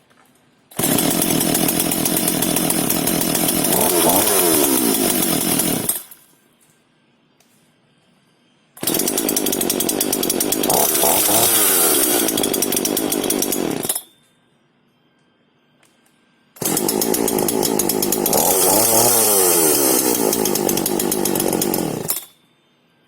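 Efco 136 two-stroke chainsaw running loudly in three separate runs of about five seconds each, each starting and cutting off abruptly, with the engine pitch rising and falling in the middle of each run.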